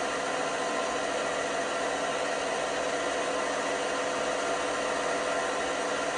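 LG washing machine running, a steady whirring hum with a few faint steady tones and no breaks.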